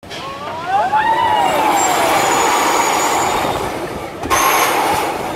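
Pneumatic shot tower firing its seats up the tower with a loud rush of compressed air, with riders screaming as it launches. The rush breaks off briefly about four seconds in and then picks up again.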